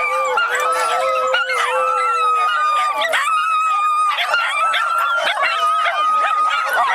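A pack of miniature schnauzers howling together: several long howls at steady pitches overlapping one another, with shorter wavering cries mixed in.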